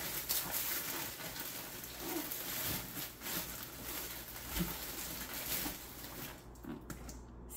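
Packaging rustling and crinkling as it is handled, with scattered small crackles and a few soft low bumps.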